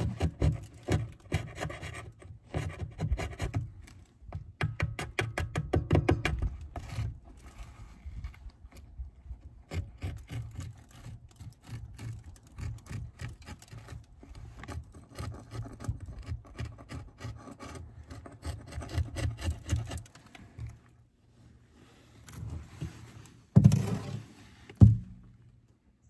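Flat metal hive tool scraping wax comb and honey on a wooden Layens hive frame, in quick repeated strokes. The scraping stops about 20 seconds in, and two sharp wooden knocks follow near the end.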